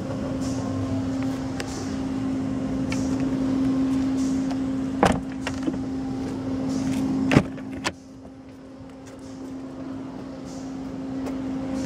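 Car doors of a Mercedes-Benz S65 AMG being worked: two sharp clunks, about five and seven and a half seconds in, the second the loudest, over a steady hum.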